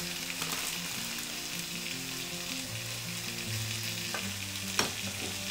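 Beef, onion and tomato sizzling steadily in a hot stainless steel pan with spices just added. A wooden spatula knocks sharply against the pan twice near the end.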